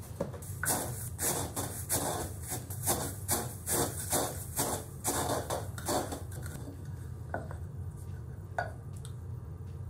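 Wooden pestle grinding Red Berries Special K flakes in a wooden mortar, a gritty rubbing and crunching in rhythmic strokes about twice a second, crushing the cereal to powder. The grinding stops about two-thirds of the way through.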